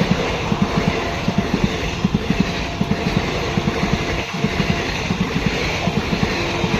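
Indian Railways electric-hauled train passing, its wheels clattering over the rail joints in a steady, rapid rhythm of heavy thuds over a continuous rumble.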